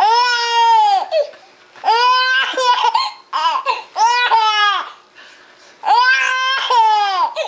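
High-pitched laughter: a series of drawn-out calls, each rising then falling in pitch, with short pauses between them.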